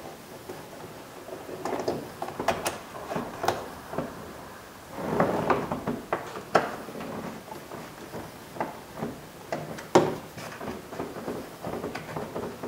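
Small clicks, scrapes and rattles of a screwdriver and the plastic armrest trim on a Toyota 4Runner door panel as its screws are taken out. A short stretch of scraping comes about halfway through, and one sharper click comes later.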